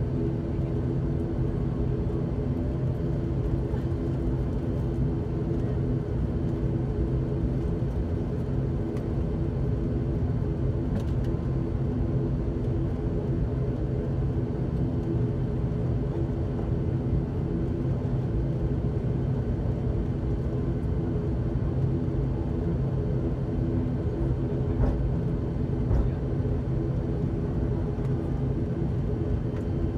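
ATR 72-600's Pratt & Whitney PW127M turboprop engines and propellers at taxi power, heard inside the cabin as a steady drone with several steady tones.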